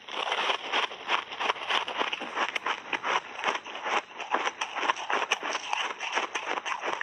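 Frozen mixed-berry ice balls being bitten and chewed: a dense, continuous run of crisp crunching cracks.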